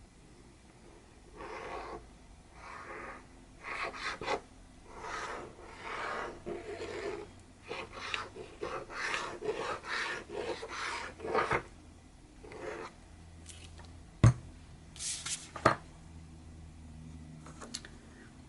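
A dozen or more short rasping, rubbing strokes on paper or card, then two sharp knocks near the end.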